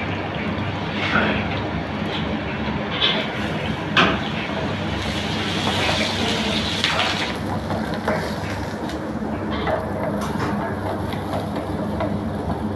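Egg sizzling in hot oil in a nonstick frying pan while a wooden spatula scrapes and knocks against the pan, breaking the egg up; the loudest knock comes about four seconds in. A steady low hum runs underneath.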